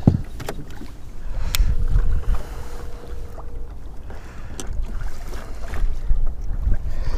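Strong wind buffeting the microphone in a steady low rumble, with a few sharp clicks scattered through it.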